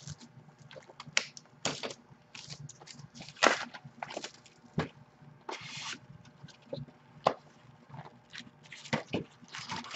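Cardboard trading-card box being handled and opened: scattered taps, clicks and rustles of cardboard and packaging, with one longer rasp a little past halfway.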